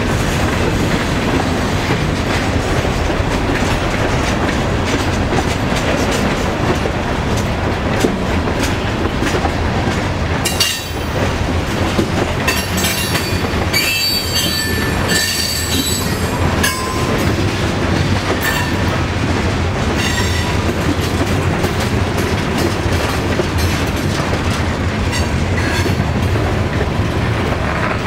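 Freight train of covered hopper cars rolling past at steady speed, its wheels clattering over the rail. A high wheel squeal rises over the rolling noise for several seconds in the middle.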